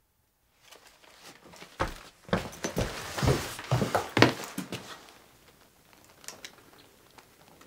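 Wooden knocks and clatter of an armful of split firewood logs being carried in, a quick run of sharp knocks loudest about four seconds in, then a few faint clicks.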